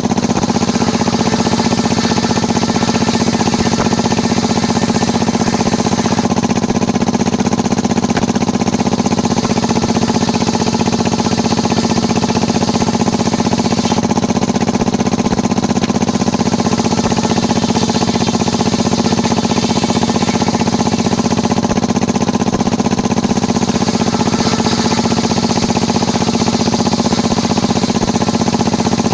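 Engine of a small mobile circular sawmill running steadily at a constant speed, with no rise or fall in load.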